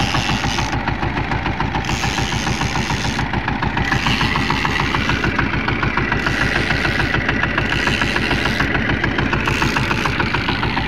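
Fishing boat's engine running steadily at trolling speed, with a fast, even beat.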